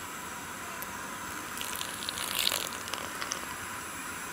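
Asafoetida water poured from a small glass bowl onto dry batter flour and spices: a short splashing trickle about a second and a half in, lasting about a second, followed by a few small clicks, over a steady faint hiss.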